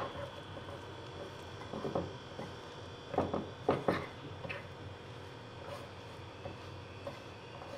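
Spoon scraping and knocking against a ceramic bowl while stirring flour and warm water into a dough: a few faint scrapes, with the loudest cluster of short scrapes about three to four seconds in.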